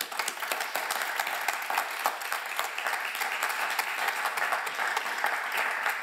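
Audience applauding: dense, steady clapping that breaks out suddenly and keeps up evenly.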